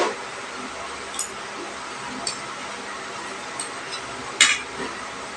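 Sounds of eating at a table: a few faint clicks of utensils against a bowl and two short noisy bursts, one at the start and one about four seconds in, over a steady low hiss.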